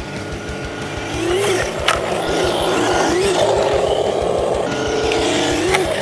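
Simulated engine sound from an RC truck's onboard sound module, revving up in several short rising pulls over a steady low pulsing and growing louder about a second in. Two sharp knocks, one about two seconds in and one near the end.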